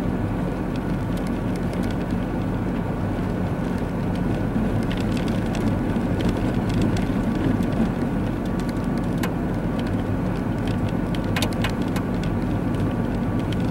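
Car driving on a snow-covered road, heard from inside the cabin: a steady engine hum with tyre and wind noise, and a few faint clicks late on.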